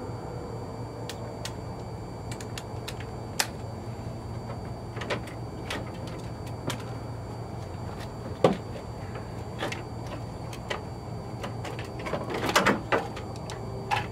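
Scattered clicks and knocks of a car headlight assembly being handled while its old bulb and ballast are taken off, the loudest knock about eight seconds in and a quick cluster of clatter near the end, over a steady low hum.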